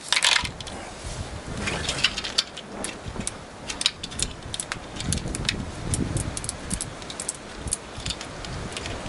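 Steel ball bearings clicking and clinking as a magnet on a stick is dragged around a slingshot catch box, the balls snapping onto the magnet and knocking against each other in quick, irregular clicks over a low scraping rumble.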